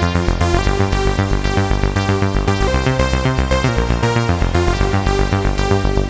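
Clavia Nord Micro Modular synthesizer playing its 'Machiner' patch: a fast, steady, sequenced electronic pattern of pulsing pitched notes over bass, with reverb and delay added.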